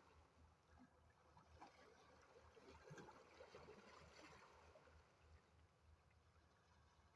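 Faint sea water lapping and trickling, very quiet and uneven, close to silence.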